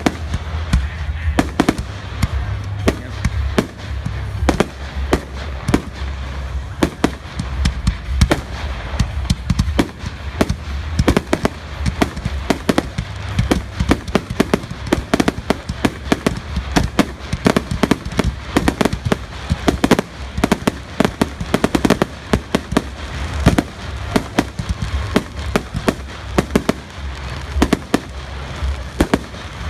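Professional fireworks finale: a dense barrage of cake shots and 3-inch aerial shell bursts, several sharp reports a second over a continuous deep rumble.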